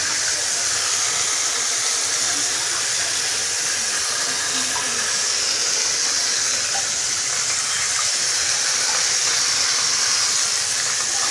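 Handheld shower head spraying water over a Daewoo Matiz radiator's clogged core fins and running into a bathtub: a steady hiss of running water, flushing dirt out of the radiator.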